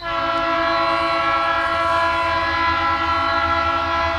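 Horn of a Norfolk Southern SD40-2 diesel locomotive sounding one long, steady chord blast that starts abruptly, over the low rumble of the diesel engine.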